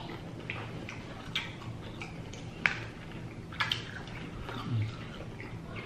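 Wet eating sounds: sauce-covered prawn shells being peeled and pulled apart by hand, with chewing. A few sharp clicks and crackles stand out, the loudest near the middle and a quick pair a second later.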